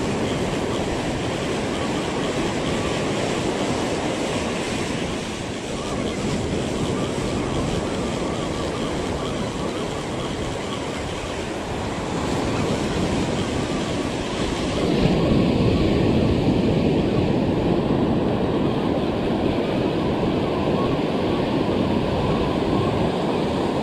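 Ocean surf rolling in and washing up the beach, with wind on the microphone. It grows louder about fifteen seconds in.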